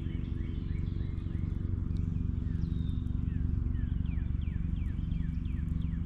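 Fishing reel being cranked in a steady retrieve, a low whirring hum with fine fast ticking, while birds give repeated short downward-slurred chirps over it.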